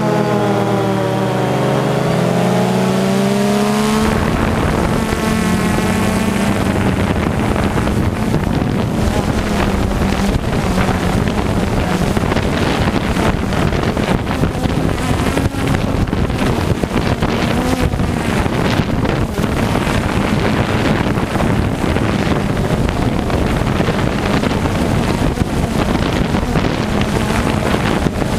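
Wind buffeting the microphone, a loud continuous rushing with a faint steady hum underneath. For about the first four seconds a pitched tone dips and rises in pitch, then stops.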